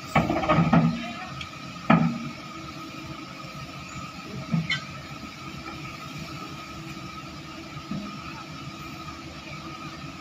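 Hyundai hydraulic excavator's engine and hydraulics running steadily with a constant whine, as it works its bucket against an overturned dump truck. A few loud knocks stand out in the first second and about two seconds in, with lighter ones later.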